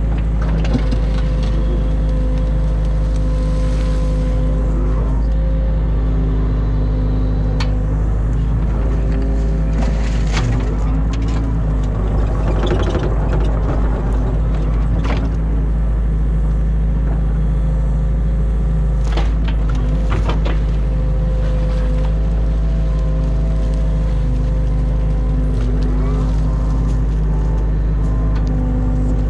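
New Holland Kobelco E50.2 mini excavator's diesel engine running steadily under working load, with a hydraulic whine that shifts in pitch as the arm and bucket move. A few sharp knocks and clatters come through, mainly in the middle of the stretch.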